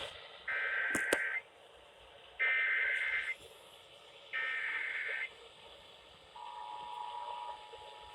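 Emergency Alert System SAME header: three identical bursts of high, buzzy data tones about a second apart, followed by a steady alert tone that begins near the end and continues.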